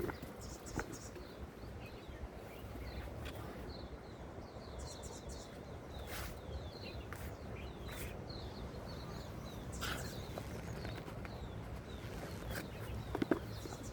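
Small birds chirping in quick runs of short, falling high notes. A few sharp knocks sound in between, over steady outdoor background noise.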